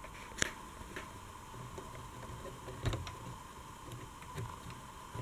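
Faint handling noise over a steady low hum: a sharp click just under half a second in, a click with a soft knock about three seconds in, and a few smaller ticks.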